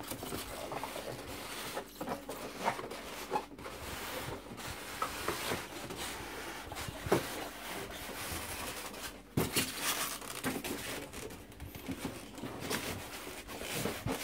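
Hands opening a cardboard box: the lid rubbing and scraping as it slides off, with irregular taps and clicks of cardboard and plastic packing.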